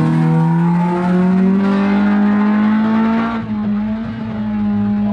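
A car engine pulling away under light throttle. Its note climbs slowly in pitch for the first second or so, then holds steady.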